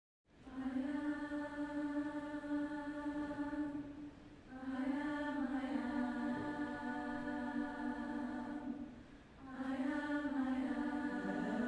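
Youth choir of mixed voices singing unaccompanied, holding one note in three long phrases with short breaks between them. Near the end the voices divide and some drop to a lower note.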